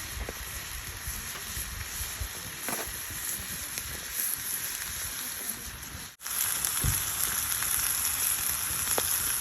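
Campfire burning in a fire pit: a steady hiss with a few faint crackles. The sound drops out for an instant about six seconds in and comes back a little louder.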